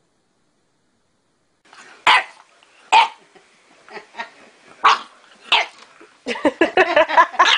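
A bulldog puppy barking at its own reflection in a mirror, after a silent first couple of seconds: a few single sharp barks about a second apart, then a quick run of barks near the end.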